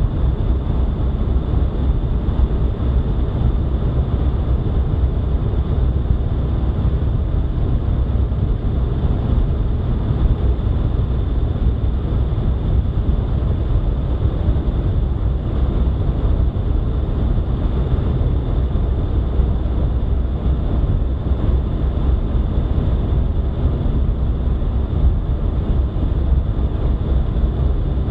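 Steady low rumble of road and wind noise from a vehicle driving at speed on an open highway.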